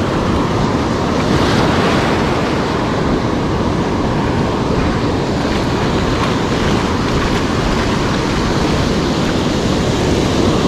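Ocean surf breaking and washing up over the sand in a steady rush, with wind buffeting the microphone.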